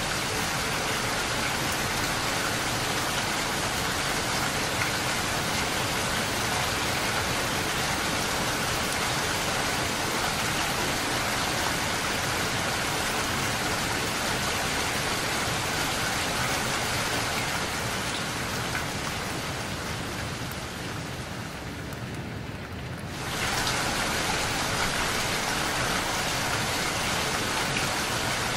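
Steady rain pattering on a window pane. About twenty seconds in it thins and softens for a few seconds, then comes back abruptly at full strength.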